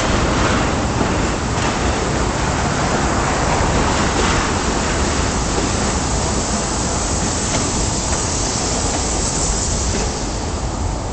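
Freight cars (tank cars, then a gondola) rolling past on steel wheels: a steady, loud rumble and rush of wheels on rail that eases slightly as the last car goes by near the end.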